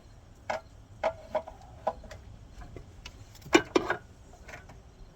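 A handful of sharp, irregular clicks and clinks of tools and engine parts being handled, with a louder double knock about three and a half seconds in.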